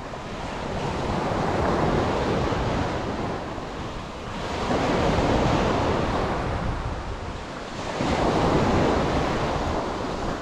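Sea surf washing onto the beach in slow surges about every three to four seconds, with strong wind buffeting the microphone.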